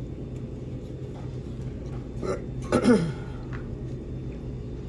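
A person's short non-speech vocal sound, a gulp-like sound falling in pitch, about three seconds in, over a steady low background hum.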